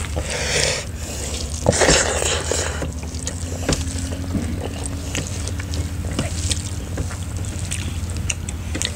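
Eating sounds of people eating rice and curry with their hands from steel plates: wet mouth noises and chewing with scattered small clicks, plus two short hissy stretches in the first few seconds. A steady low hum runs underneath.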